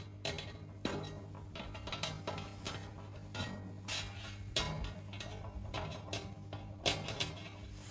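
Irregular clinks, taps and scrapes of hard objects, most likely metal, being handled and rubbed, over a steady low hum; the sound cuts off abruptly at the end.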